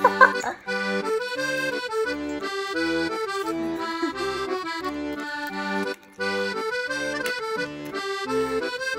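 Background music: a lively melody over a steady bass-and-chord beat, with a brief chirp-like sound just at the start.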